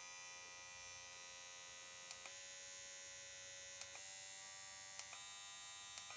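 Dr. Pen microneedling pen's motor buzzing steadily. Its pitch changes in steps three times, each just after a small click of the button, as it is switched through its speed settings.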